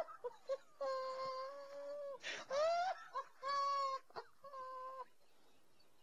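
A person's high-pitched wailing voice: four drawn-out, squealing notes of about a second each, the second one sliding upward in pitch.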